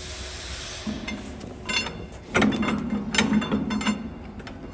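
Rapid metallic clicking and grinding over a low hum, densest and loudest in the second half: the conical twin-screw extruder's screw being turned and pushed into the gearbox coupling sleeve.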